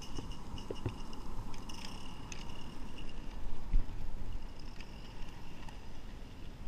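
Regner Lumber Jack live-steam garden-railway locomotive running with its freight wagons: a low rumble with a faint steady high hiss and a few scattered small clicks.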